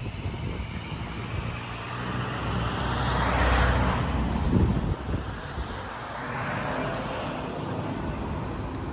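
Vehicle noise: a rumble that swells to its loudest about three and a half seconds in and fades, then a second, weaker swell near seven seconds.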